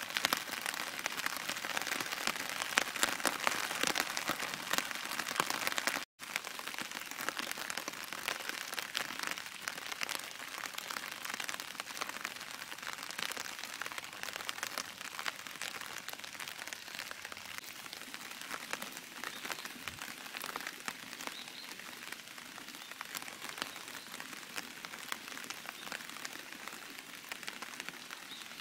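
Steady rain falling on the ground and outdoor surfaces, a continuous hiss of countless individual drops ticking, easing slightly in the second half. The sound breaks off for an instant about six seconds in.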